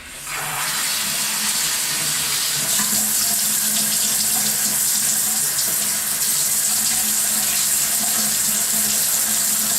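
Bathroom sink faucet turned on and running steadily into the basin while grit is rinsed out of its aerator.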